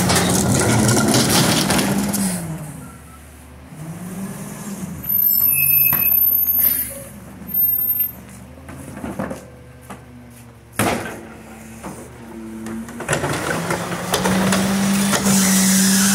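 Rear-loading garbage truck, an Autocar ACX with a McNeilus packer body, running as it packs: the engine revs up and down with the hydraulics, then drops quieter with a few brief high squeals. A single sharp bang comes about eleven seconds in, and the engine revs up again steadily near the end.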